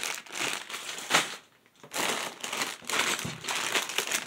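Clear plastic Lego parts bags crinkling and rustling as they are handled, with a short pause about a second and a half in.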